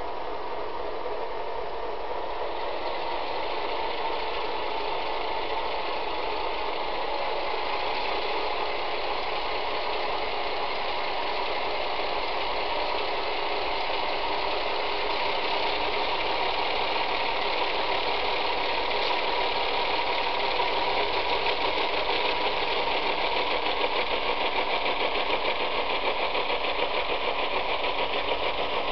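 Model diesel engine sound effects from the onboard speakers of two Bowser Alco locomotives, a steady engine drone mixed with motor and wheel noise on the track. It grows a little louder as the locomotives come closer.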